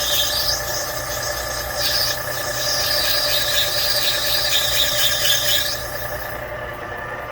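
A machine-tool spindle runs with a steady hum while a cutter works into a 427 Chevy big-block cylinder head, making a high-pitched squealing hiss. The cut eases off briefly about two seconds in, then resumes and stops about six seconds in, leaving only the machine's hum.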